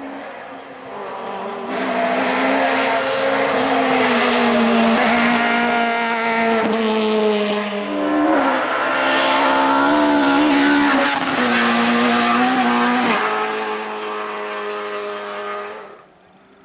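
Rally car engines at high revs, holding a steady, high pitch that shifts and wavers a few times. Louder from about two seconds in; the sound cuts off suddenly near the end.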